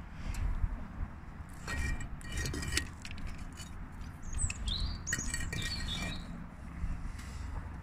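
Small birds chirping in short high calls, clustered in the middle of the stretch, over a steady low rumble.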